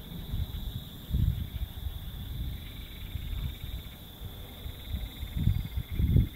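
Night insects chirring in a steady high-pitched drone with a faint rapid trill, over a gusty low rumbling that grows louder near the end.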